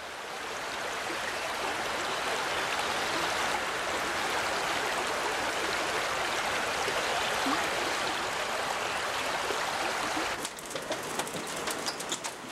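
Mountain river rushing steadily over rocks. Near the end it drops away to a quieter run of irregular clicks and knocks.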